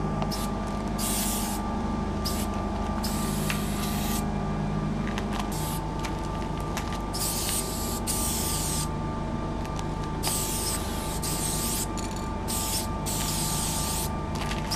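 Aerosol spray paint can hissing in a series of short and longer bursts as a graffiti piece is painted on a freight car, over a steady background hum.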